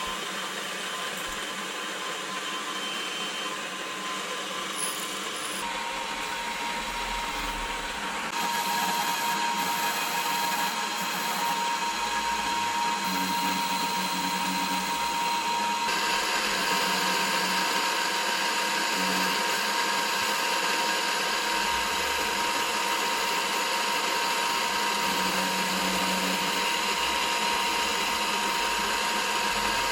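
Milling machine running steadily as it cuts a Glock 45 airsoft pistol slide: a steady mechanical whine with a high tone. It grows louder about eight seconds in and again about sixteen seconds in.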